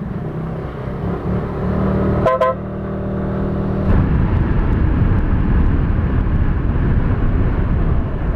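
Motorcycle engine running at a steady pitch as the bike rolls onto the road, with a short horn toot about two seconds in. From about four seconds, wind and road rumble on the camera microphone take over as the bike picks up speed.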